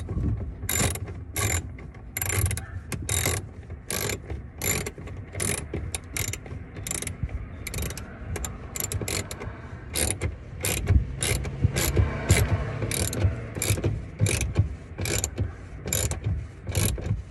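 Socket ratchet wrench clicking in steady back-and-forth strokes, about two a second, as it tightens a taillight's mounting bolts.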